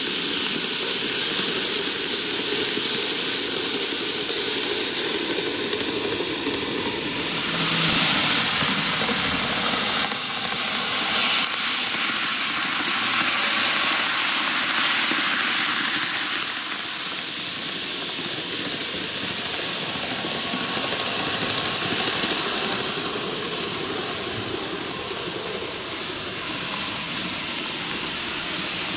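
N gauge model electric trains running on curved track: a steady hissing rattle of small motors and wheels on the rails. It swells as a train passes close by, about a third to halfway through.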